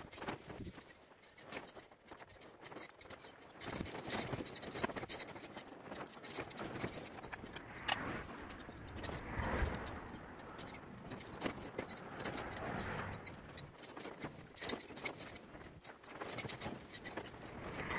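Scattered light metal clicks and scrapes from fitting shims and the top cap onto a tractor steering column by hand, with a few soft rustles.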